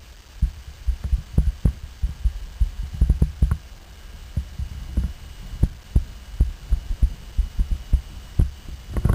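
Model rhombic-drive Stirling engine running: a rapid, uneven series of low thumps and light clicks from its moving parts.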